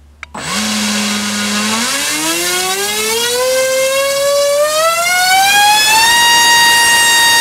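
Brushless inrunner RC motor (GoolRC 4082, 1900 kV) with a 7.5x5 propeller on a thrust stand, run up on a 5-cell lipo: a click as it starts, a low steady whine, then a whine that rises steadily in pitch as the throttle is opened, holding steady and high from about six seconds in.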